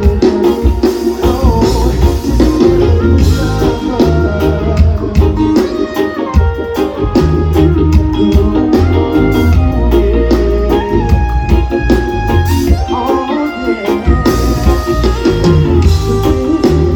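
Live reggae-pop band playing over a festival PA, recorded from well back in an open-air crowd: drum kit, bass and guitar, with a singer.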